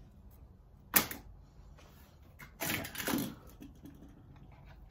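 Hand work on a wire at a control-panel fuse holder: one sharp click about a second in, then about a second of rustling and scraping as the wire is handled and fitted.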